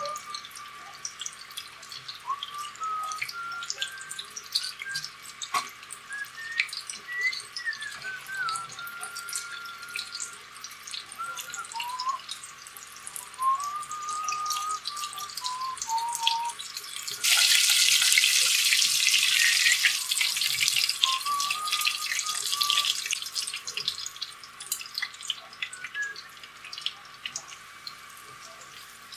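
Breaded ham cutlets deep-frying in a pot of oil, a steady crackling sizzle that grows much louder for about four seconds a little past the middle. Over it a man whistles a slow melody.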